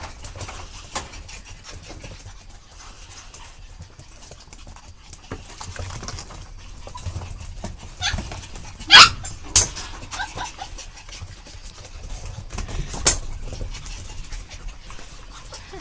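Puppies playing: panting and scuffling, with many small clicks and rustles. There are loud sharp sounds about nine seconds in, again just after, and once more a few seconds later.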